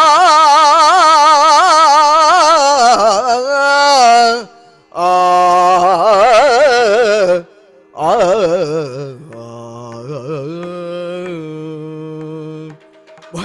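A man sings a drawn-out, heavily ornamented devotional melody on vowels, with a harmonium holding a steady drone beneath. The singing breaks off twice, and softer, lower held notes follow near the end.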